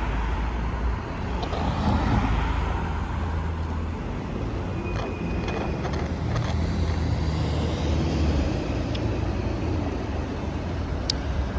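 Roadside traffic: motor vehicles passing with a steady low engine and tyre rumble that swells and eases.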